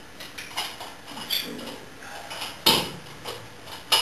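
Metal clicks and clinks of a split pin being worked out of the float-arm pivot of a brass ballcock, with a sharper metal knock about two and a half seconds in and another just before the end.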